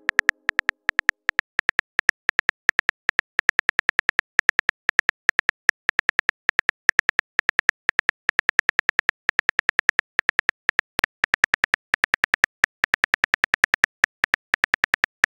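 Simulated smartphone keyboard clicks from a texting-story app, a rapid run of short clicks, several a second, as a message is typed out letter by letter.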